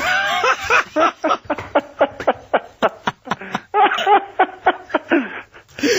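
Men laughing hard over a telephone line, in rapid, repeated breathy pulses.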